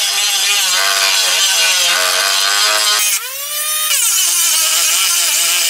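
Handheld rotary tool (Dremel-type) running with its abrasive bit grinding along a crack in a plastic moped fairing, a steady high whine over a gritty hiss. About three seconds in the motor's pitch swings up briefly, then settles lower.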